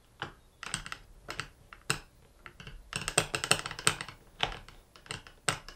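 Screwdriver turning the last screw into the casing of a Kranzle M2000 pressure washer trigger gun: a run of irregular small clicks and ticks, thickest about three to four seconds in.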